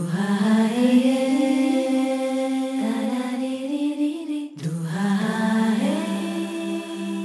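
Background music: a slow vocal chant with long held notes. A new phrase begins about four and a half seconds in.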